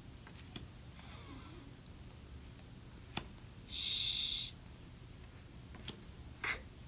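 A woman saying isolated digraph sounds without vowels: a faint "th" hiss about a second in, a loud "sh" hiss around four seconds in, and a short "k" near the end, with the light clicks of flash cards being flipped between them.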